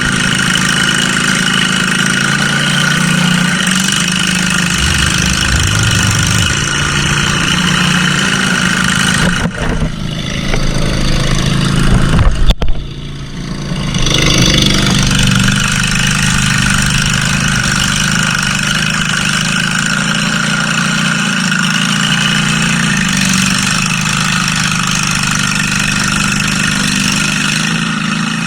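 Small engine of a mud mower running steadily on a trail ride. About twelve seconds in there is a sudden loud jolt, and the engine note dips briefly before picking up again.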